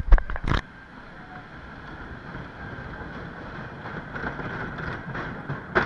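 A few knocks of a hand handling the camera, then the Tonnerre de Zeus wooden roller coaster train rolling out of the station: a steady rumble of its wheels on the track that slowly grows louder.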